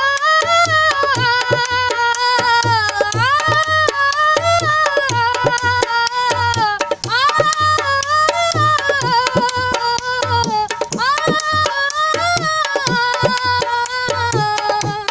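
Instrumental interlude of a Punjabi song: a gliding melodic lead over a steady hand-drum beat.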